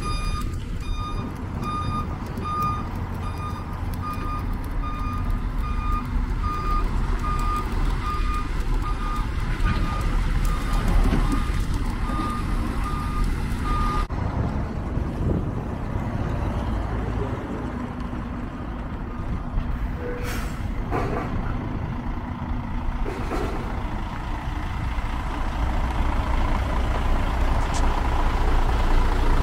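Mercedes-Benz Axor 1840 truck's diesel engine running as it maneuvers with a low-bed trailer, its reversing beeper sounding about twice a second through the first half and then stopping. A few short air-brake hisses come about two-thirds of the way through.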